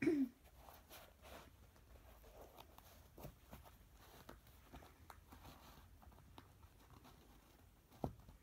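Soft rustling and scuffing of a new basketball sneaker being pulled onto a socked foot while its laces and tongue are handled, with scattered faint clicks. A brief squeak comes right at the start and a sharp click near the end.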